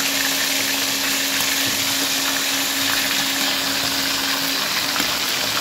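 Water boiling hard around shrimp in a stainless saucepan: a steady bubbling hiss, with a low hum under it that stops near the end.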